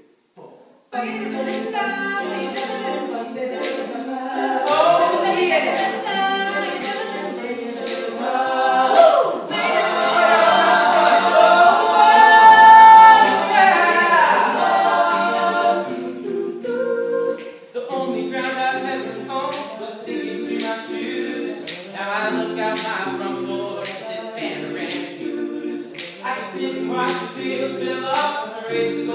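An all-male a cappella group singing a country ballad in close harmony, with a steady vocal-percussion beat of sharp clicks under the voices. The singing starts about a second in after a brief silence and swells louder and fuller in the middle.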